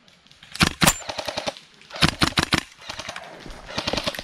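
Airsoft guns firing in rapid bursts of sharp pops: one burst about half a second in, another at about two seconds, and a third near the end.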